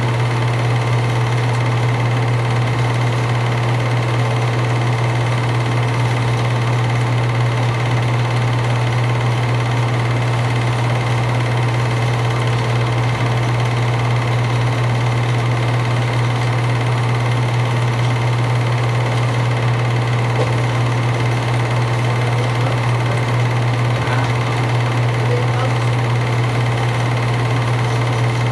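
8mm film projector running: a steady motor hum with a mechanical whirr that does not change.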